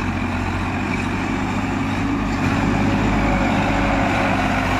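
Sonalika DI 740 tractor's diesel engine pulling hard under load as the tractor drives through deep paddy-field mud on plain tyres without cage wheels. It runs steadily and gets slightly louder about halfway through.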